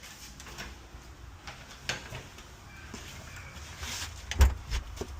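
A house door being opened and pulled shut: a few handle and latch clicks, then a heavy closing thump about four seconds in.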